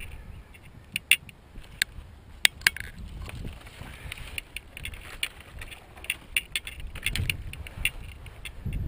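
A bundle of long, thin binding rods clacking against each other and swishing as it is dragged across grass, with irregular sharp clicks and a few dull thumps of footsteps.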